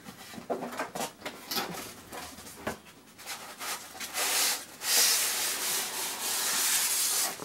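Cardboard packaging rustling and knocking as a boxed statue is tipped and opened. About four seconds in comes a steady scraping rub, lasting about three seconds, as the contents are slid out of the cardboard box.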